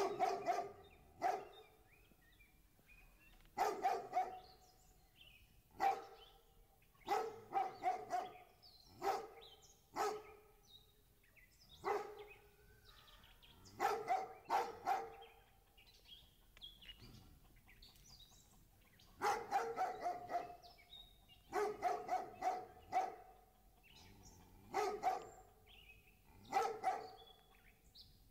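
A dog barking repeatedly, in single barks and quick runs of two to four, with short pauses between and a longer pause past the middle.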